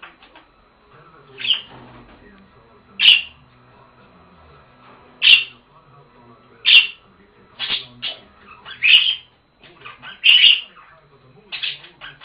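Pet budgerigars giving short, sharp calls about every one to two seconds, with quieter chattering between the calls.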